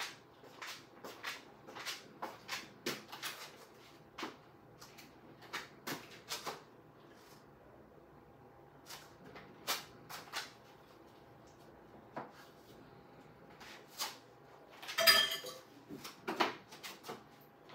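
Scattered light knocks and clicks of small objects being handled and set down, with a louder clatter about fifteen seconds in.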